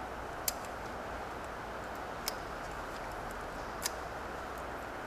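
Three light, sharp metallic clicks, spaced out, as a piston ring is worked onto a Honda GX160 piston by hand, over a steady low hiss.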